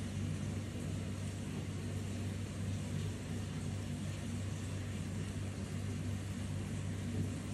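Steady low electrical hum over a constant hiss, with no distinct events.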